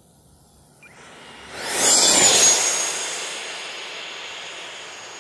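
Freewing F-16 RC jet's 90 mm electric ducted fan sweeping past on its landing approach with gear down: a rushing, whining sound swells within about a second to a loud peak. The high whine dips slightly in pitch as the jet goes by, then holds as the sound slowly fades.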